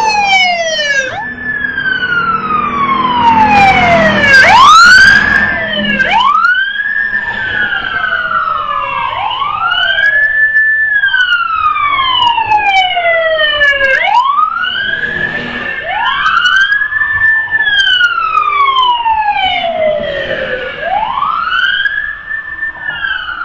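Several police patrol car sirens wailing together, each rising and falling slowly over a few seconds and overlapping out of step. They are loudest about four to five seconds in and fade toward the end.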